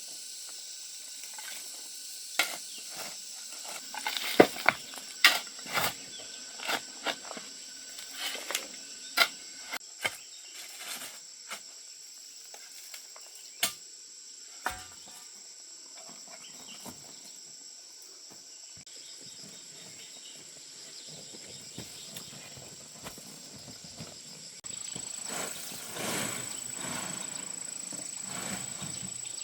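Steady high-pitched insect drone, with scattered sharp knocks and clicks through the first half; the drone grows louder near the end.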